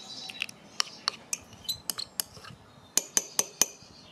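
Metal teaspoon clinking against the inside of a ceramic cup while stirring thick milk paint: scattered clinks, then a quick run of four about three seconds in.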